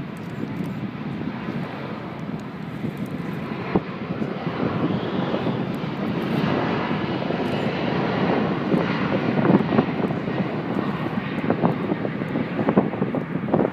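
Airbus A380's four turbofan engines at takeoff thrust during the takeoff roll: a steady jet engine noise that builds in loudness from about halfway through as the aircraft accelerates past.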